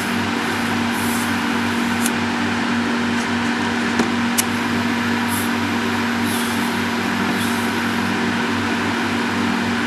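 Steady hum of an extraction fan while a carbon-fibre electropolishing brush is worked over a stainless steel weld, with a few sharp crackling pops at the brush, two seconds in and around four seconds in: tiny hydrogen explosions, normal for electropolishing.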